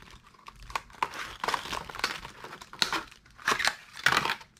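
Clear plastic blister pack of a soft-plastic shrimp lure being pried off its cardboard backing, crinkling and crackling in irregular bursts, loudest near the end.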